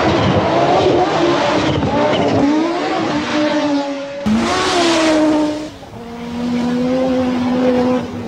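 Audi quattro Group B rally car's turbocharged five-cylinder engine revving hard at speed on a gravel stage, its note climbing and dropping back several times through gear changes over a noisy hiss. The sound changes abruptly about four seconds in to another run of the car.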